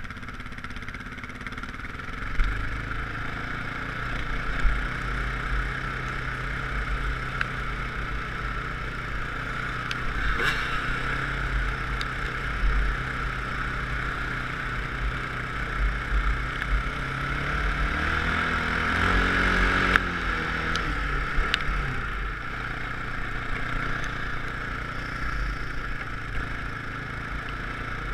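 Off-road vehicle engine running under throttle while riding over sand, heard through a helmet-mounted camera with wind rushing past. About eighteen seconds in the engine revs up, then drops back about two seconds later.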